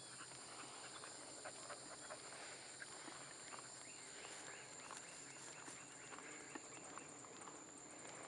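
Quiet outdoor ambience: soft irregular footsteps of a walker and dog on the road, over a steady high insect buzz that takes on a fast pulsing chirp in the second half, with the faint low drone of a distant four-wheeler going slowly.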